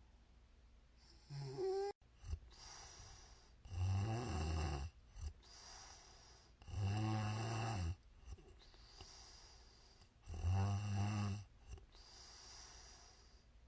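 A woman snoring in deep sleep: three loud, rattling snores about three seconds apart, each followed by a softer breath out. A brief pitched, gliding sound comes about a second and a half in and is cut off abruptly.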